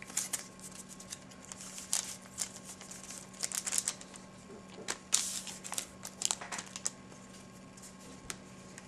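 A trading-card pack wrapper being torn open and crinkled, and the cards handled, in irregular crackles that thin out about seven seconds in. A faint steady hum runs underneath.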